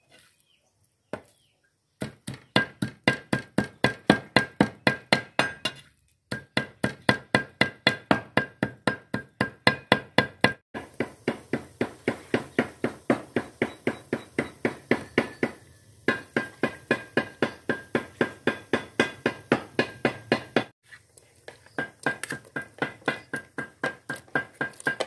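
Cleaver mincing raw duck meat on a wooden chopping block for larb: fast, even strokes about five a second, the blade ringing on each hit, with a few short breaks.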